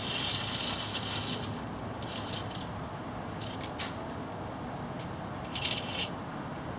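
Steady rain noise, with several brief louder hissing swells and a few sharp clicks.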